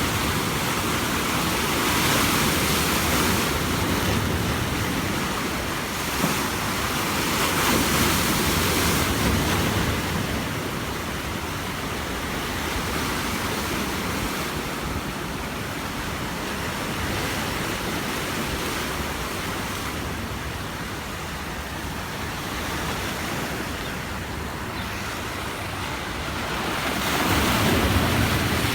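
Sea waves breaking and washing on a beach, a steady rushing surf that swells a few times, with wind buffeting the microphone.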